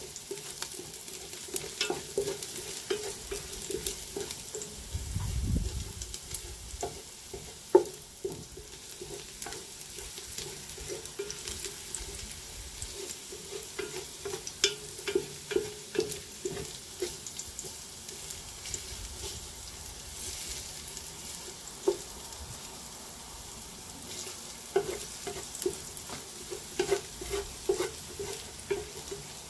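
Chopped garlic sizzling as it fries in olive oil in a pan, being browned to light brown. It is stirred, with frequent sharp clicks of the utensil against the pan.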